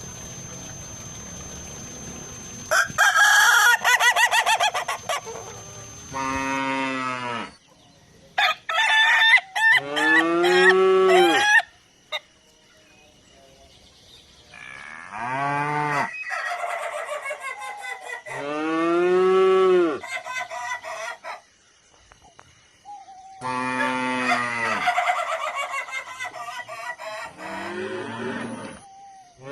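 Roosters crowing again and again, a long cock-a-doodle-doo every few seconds, each call rising and then falling in pitch, some of them harsher and raspier than others.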